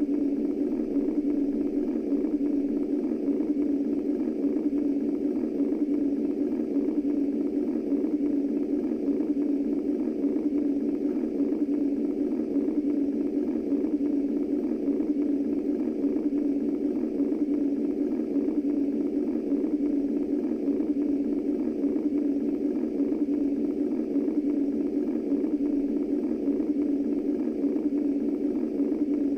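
Steady womb-style white noise: a constant low, muffled whooshing rumble with no heartbeat or other changes.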